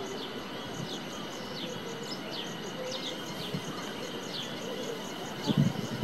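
Cicadas singing: a steady high-pitched drone with fast, even pulsing above it and short falling chirps repeating every second or so. A few low thumps come near the end.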